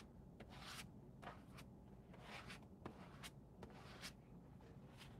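Faint, irregular scraping and rustling of painted paper sheets being handled and worked by hand, a soft stroke every half second or so, with a light tap near the middle.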